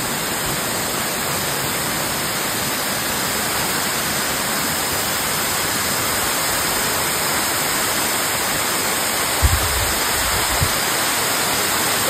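Waterfall's steady rush of falling water, an even hiss. A few brief low thumps come about nine and a half seconds in.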